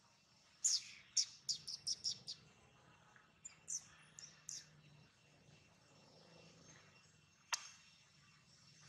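A bird chirping: a quick run of about seven short, high notes in the first couple of seconds, then a few more around four seconds in. A single sharp click sounds near the end.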